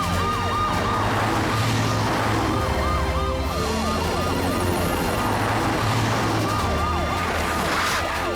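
Emergency vehicle sirens from a cartoon rescue team, wailing in a fast, repeating rise and fall with several sirens overlapping, over a music track.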